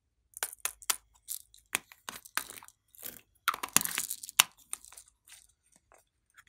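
Crisp crackling and crunching from two pink faceted blocks being worked and squeezed together by hand, a run of sharp irregular crackles that grows busiest about halfway through.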